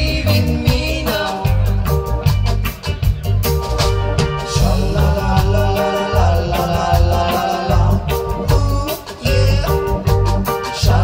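Ska band playing live, with a heavy bass line under a steady, regular drum beat.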